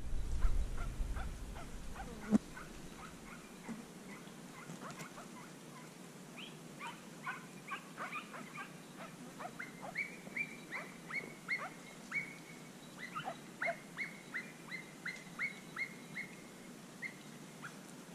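Andalusian podenco hound yelping repeatedly from thick brush while hunting a rabbit: short, sharp, high yelps that come faster, about two a second, in the second half. There is a low rumble of wind or handling at the start.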